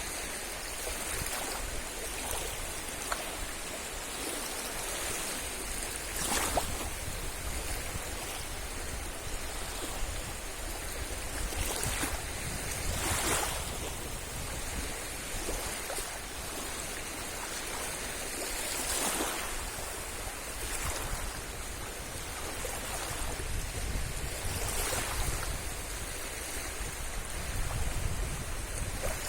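Sea waves washing onto a beach: a steady hiss of surf with a wave breaking about every six seconds, over a low rumble.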